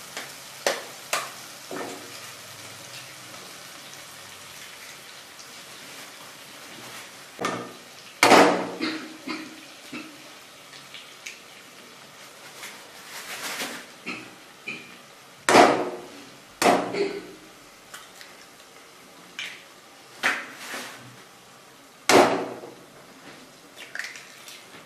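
Eggs cracked one by one against the rim of a kadhai: several sharp knocks spread a few seconds apart, over the low steady sizzle of tomato-onion masala frying in the pan.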